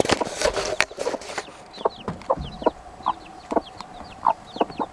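Baby chicks peeping in many short, falling high chirps, with bantam hens clucking in short low calls between them. A brief rustle in the first second or so.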